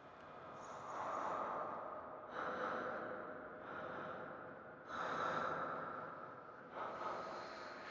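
A person breathing heavily: about five long, noisy breaths, one every second or two.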